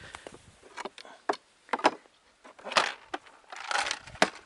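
Fishing gear being handled in a plastic sled: a string of short knocks and clatters, with a longer rattle about three and a half seconds in.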